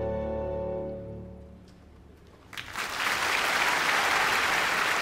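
An orchestra's held final chord, strings prominent, fades away over the first two seconds. After a brief hush, a few claps start and the audience breaks into applause.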